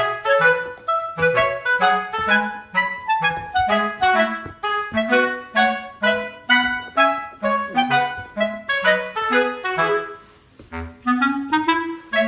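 Background music: a bouncy tune of short, detached clarinet-like notes over a plucked bass line, with a brief pause about two seconds from the end.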